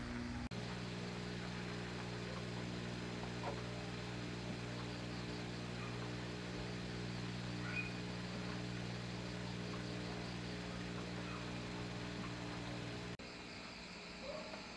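A steady low hum, with a few faint clicks of hand tools working on a motorbike engine; the hum cuts off suddenly near the end.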